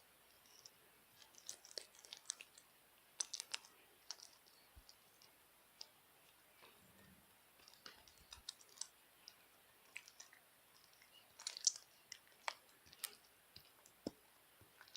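Stiff, hard slime being worked by hand, making irregular sharp clicks and crackles. Some come in quick clusters and others singly.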